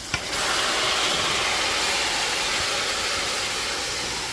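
Freshly washed, wet bhaji greens dropped into hot oil with onions and peppers in a metal pot: a small knock, then a loud, steady sizzling hiss as the water hits the oil, easing off slightly.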